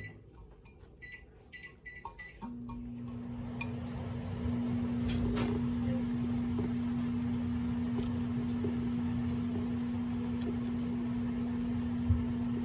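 Microwave oven: a few short keypad beeps, then the oven starts up about two and a half seconds in and runs with a steady hum. A single knock comes near the end.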